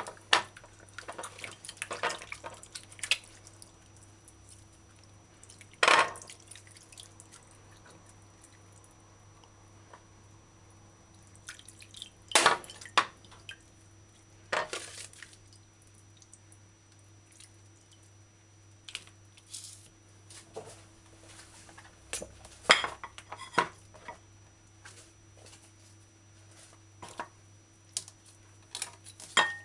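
Raw chicken breast being rinsed by hand in water and white vinegar in a ceramic bowl: wet splashes and drips, with scattered sharp clinks against the dish.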